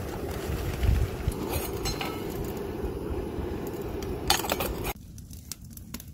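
Metal beer cans clinking and being handled, with a few light clinks and then a louder burst about four seconds in, over wind rumbling on the microphone that cuts out suddenly near the end.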